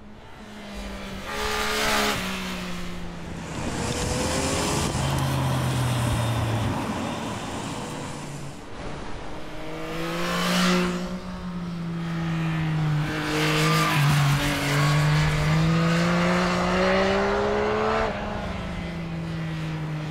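Yamaha MT-09's three-cylinder (CP3) engine running as the bike pulls away. The revs climb and drop back several times as it accelerates and changes gear, with steady stretches in between.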